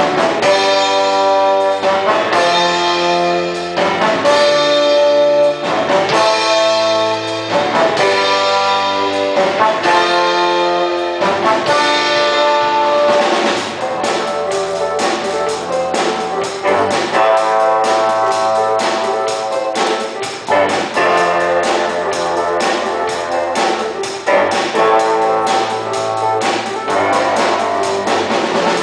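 Live band music with brass and drums: held horn chords in repeated phrases, with busier drumming from about halfway.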